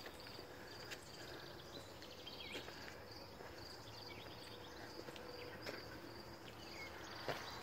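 Faint outdoor ambience: an insect chirping in a high, even pulse throughout, with a few short bird chirps and occasional soft clicks.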